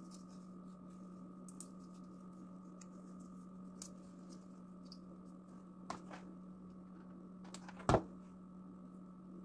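Faint handling sounds of fingers rolling and shaping a small craft flower: scattered light ticks and rustles over a steady low hum, with one sharper knock about eight seconds in.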